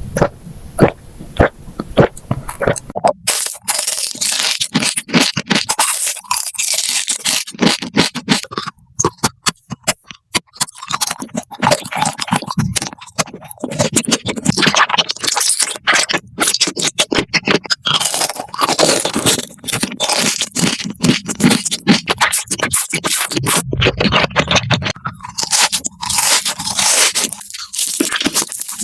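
Close-miked eating sounds: crunchy bites and chewing of crisp food, a dense run of loud crackles and crunches with brief pauses.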